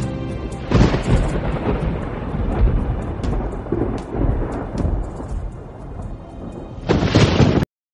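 A low rumbling, rushing noise with no clear pitch, as music fades out about a second in. A louder surge of noise near the end cuts off abruptly into silence.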